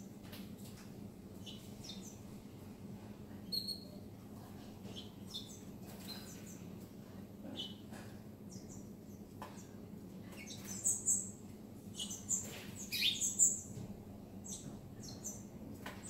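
Small caged birds, canaries among them, giving short high chirps and calls scattered throughout, busiest and loudest from about ten to fourteen seconds in, over a steady low hum.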